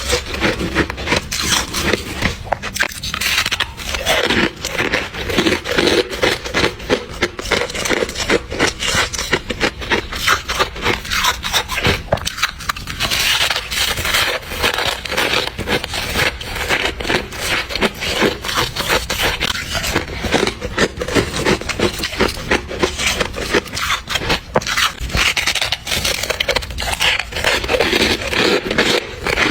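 Close-miked chewing of powdery soft freezer frost ice, with a rapid, unbroken run of crisp crunches and crackles.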